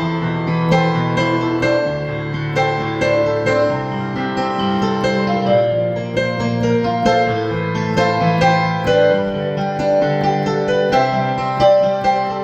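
Instrumental break played on piano or electric piano: a steady flow of sustained chords and melody notes, with no singing.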